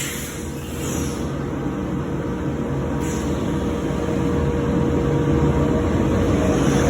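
CNC woodworking machining center running with a steady mechanical rumble and a constant steady tone that cuts off near the end.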